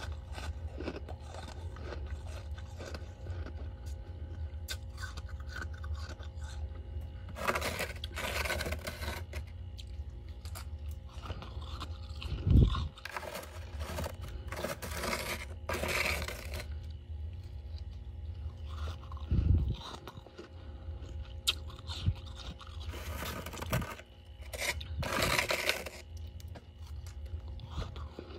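Thick freezer frost being scraped and crunched with fingernails, in three bouts of crisp crunchy scraping with two short low thumps between them. A steady low hum runs underneath.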